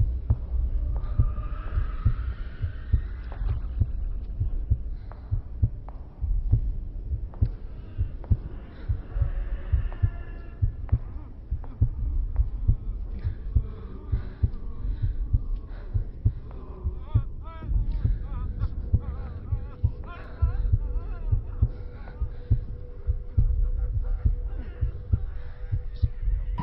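Heartbeat sound effect: deep low thumps repeating steadily, with faint scattered higher sounds above and a faint held tone in the last third.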